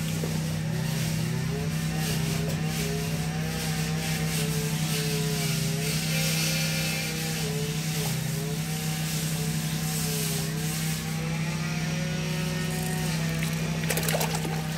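A steady low mechanical hum with a wavering whine over it. Near the end, catfish thrash and splash in a plastic barrel of water.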